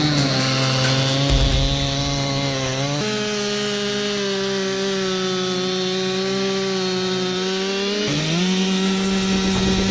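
Chainsaw engine running at high revs while cutting wood, its pitch stepping up about three seconds in and dipping briefly then recovering near the end as the load on the chain changes.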